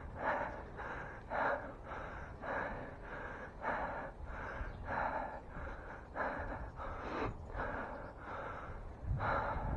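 A man breathing hard, short noisy breaths about twice a second, over a low steady rumble.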